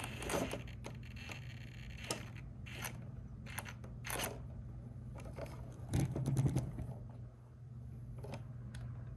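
Clear acrylic alignment gauge plates being handled and slid against an RC truck chassis: a string of short plastic scrapes and light clicks, the loudest about six seconds in, over a steady low hum.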